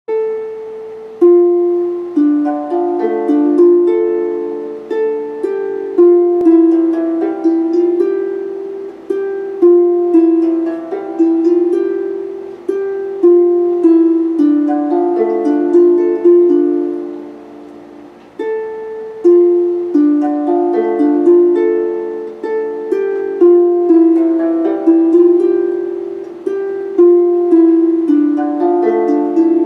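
Solo harp music: a melody of plucked notes on a 26-string Sharpsicle harp, each note struck and ringing as it fades.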